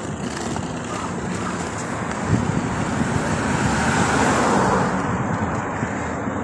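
Road traffic going by: a steady rush of passing cars, with one car growing louder and fading away around four seconds in.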